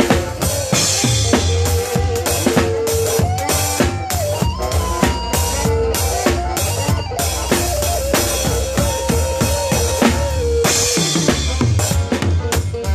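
Live band playing an instrumental passage: a drum kit keeping a busy beat with kick and snare, a bass line underneath and a wavering lead melody on top, with cymbal crashes about a second in and again near the end.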